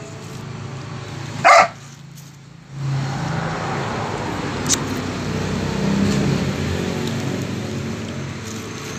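A dog barks once, sharply, about a second and a half in. A steady low hum follows.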